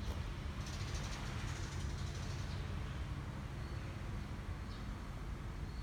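Outdoor ambience: a steady low rumble with a faint hum, the sound of distant city traffic.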